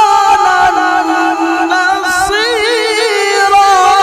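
A man singing unaccompanied in a long melodic line into a microphone, holding notes and adding a fast wavering ornament about two and a half seconds in.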